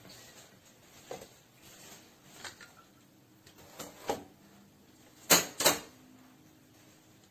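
Hard objects being handled, with scattered clicks and knocks and two sharp clacks about half a second apart a little past five seconds in. A faint steady hum sits underneath.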